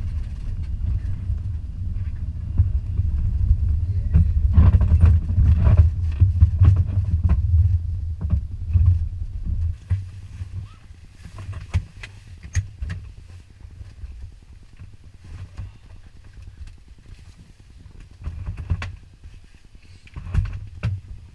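Cessna 180 ski plane's piston engine running at low power, heard from inside the cabin. It dies away about halfway through as the engine is shut down. After that come scattered knocks and rustling as the occupants unbuckle and move about the cabin.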